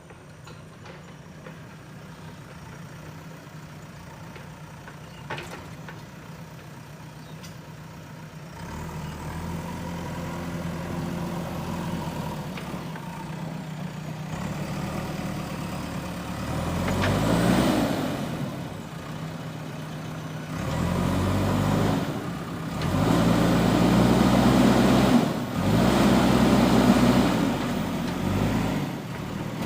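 JCB backhoe loader's diesel engine running steadily, picking up about nine seconds in, then revving up and dropping back several times in the second half as the machine works under load digging.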